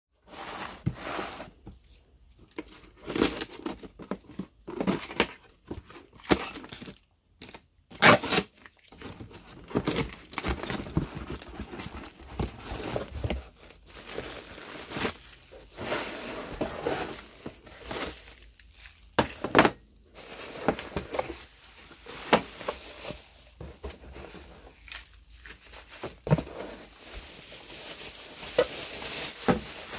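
Clear plastic wrapping crinkling and rustling as parts are lifted out of a cardboard box and unwrapped. It comes in irregular bursts with short pauses and some sharper crackles.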